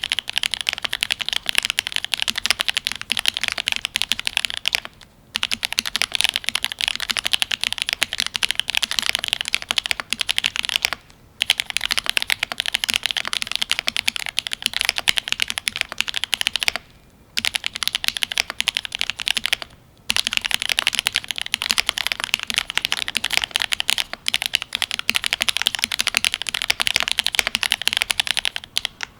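Fast, continuous typing on a Cyberboard R3 custom mechanical keyboard with lubed Gateron Ink Black linear switches, an aluminium plate and GMK keycaps: a dense run of keystroke clacks, broken by short pauses about five, eleven, seventeen and twenty seconds in.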